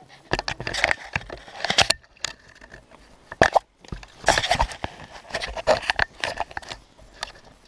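Uneven scraping, rustling and clattering close to the microphone as a rider climbs onto a downhill mountain bike and rolls off along a dirt trail, with brief lulls between the bursts. Heard through a helmet camera, so clothing and handling noise dominate.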